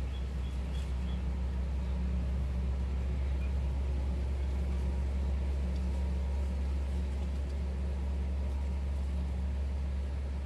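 Steady low background rumble with no distinct event, and a few faint high chirps about a second in.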